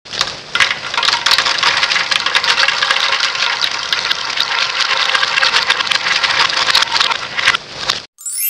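Goldfish crackers poured in a steady stream onto plastic toy trains and a plastic tub, a dense rattle of many small dry clicks that stops suddenly about eight seconds in. Right after, a rising electronic whoosh and chime starts.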